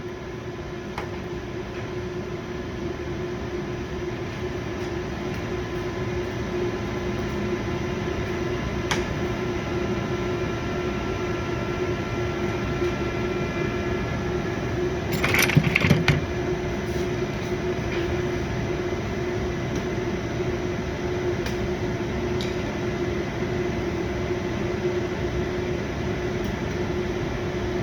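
A steady mechanical hum with a low tone runs throughout. Just past halfway comes a brief cluster of sharp clicks and knocks, with a few fainter clicks elsewhere, from a plastic wheel-arch molding being pressed and snapped onto its clips.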